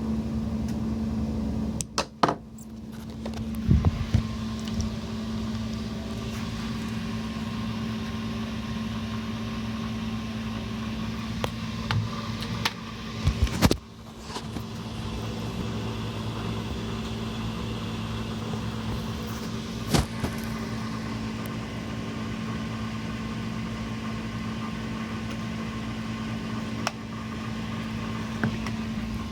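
Mercruiser 8.1-litre V8 marine engine running at a steady speed, a constant hum, during a fuel vacuum test. A few sharp knocks break through, the loudest at about 2, 4, 13 and 20 seconds in.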